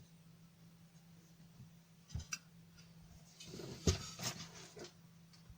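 Light knocks, clicks and rattling of a power supply's circuit board and metal parts being handled during disassembly, over a faint steady hum. There is one knock a little over two seconds in, then about a second and a half of clicking and rattling with the loudest knock near four seconds.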